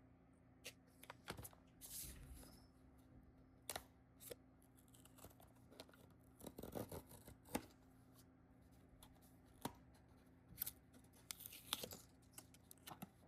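Faint, intermittent handling of packaging: scattered sharp clicks and a few short crinkling, tearing rustles over a low steady hum.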